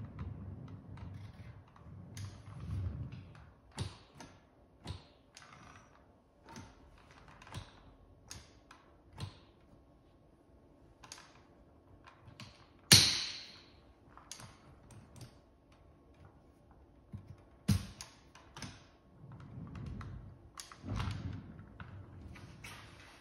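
Indoor rollator being handled: scattered clicks and knocks from its frame and fittings, with a sharp clack and brief scrape about thirteen seconds in, another sharp knock a few seconds later, and low rumbles that may be its wheels rolling.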